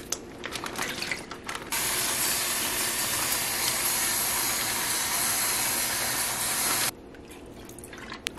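Plastic packaging crinkling as a pork roast is unwrapped, then a kitchen faucet runs in a steady hiss into a bowl in a stainless steel sink for about five seconds and shuts off suddenly.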